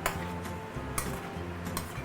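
A cooking utensil clinking against a pot three times, sharp and brief, over background music with a steady low line.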